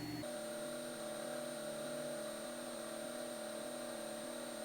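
Cessna 172's piston engine running steadily in flight, heard faintly as an even drone with a steady hum.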